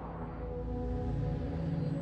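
Background music: a deep held drone of steady tones, slowly growing louder.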